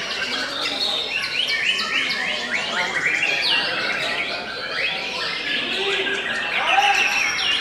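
White-rumped shamas (murai batu) singing, several birds overlapping in a dense, unbroken tangle of quick whistles, chirps and sweeping notes.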